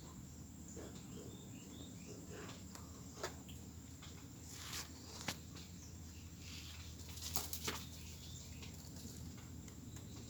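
Faint scuffling with a few sharp taps scattered through, the loudest a pair close together near the end, over a steady low hum.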